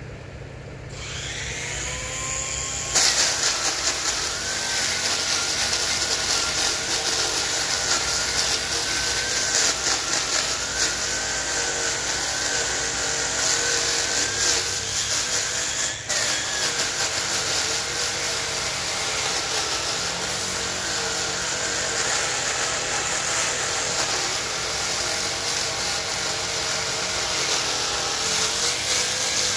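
Angle grinder with a sanding disc spinning up with a rising whine about a second in, then sanding a solid pine slab: a steady motor whine under a loud grinding hiss from the disc on the wood, easing off briefly about halfway through.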